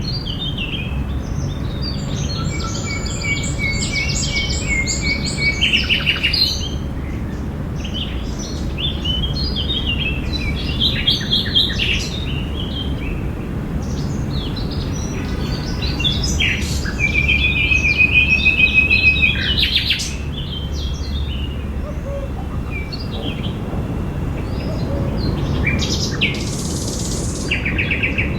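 Several songbirds chirping and singing, with a sustained trill from about 17 to 20 seconds in, over a steady low background rumble.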